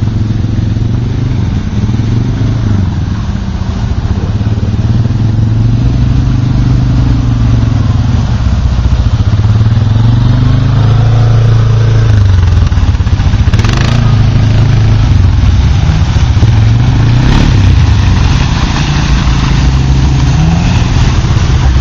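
Suzuki KingQuad ATV engine running and revving up and down as the quad pulls through deep mud, over the drone of another quad's engine close by. Two short knocks come past the middle, a few seconds apart.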